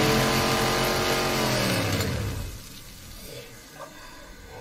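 Chainsaw sound effect from an anime, a high-revving, engine-like run with a steady stack of tones that resembles a small sped-up V8. About two seconds in it winds down, falling in pitch and fading, and leaves only faint low background sound.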